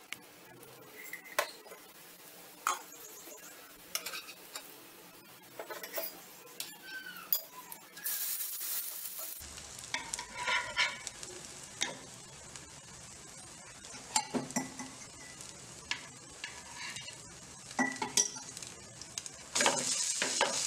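Wheat rava dosas frying in a non-stick pan with a soft sizzle, and a steel spatula tapping and scraping on the pan as they are turned over.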